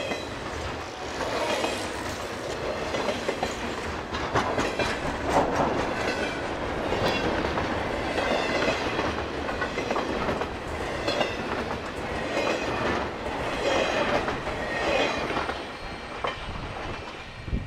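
CSX intermodal freight train's container well cars and trailer cars rolling past, their steel wheels clattering over the rail joints with a steady rumble. The sound eases near the end as the last car goes by.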